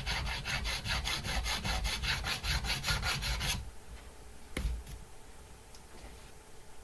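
Fret crowning file rasping across a stainless steel fret in quick, even strokes, about five a second, stopping about three and a half seconds in. A single knock follows about a second later.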